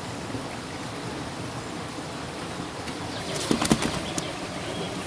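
A stream running steadily, with a short cluster of knocks and rustling about three and a half seconds in as squash and small pumpkins are put into a woven bamboo basket.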